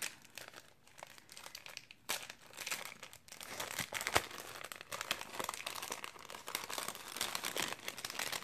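Crinkling and rustling of a plastic packet and paper die-cuts being handled and opened by hand, an irregular run of crackles, with one sharper click about four seconds in.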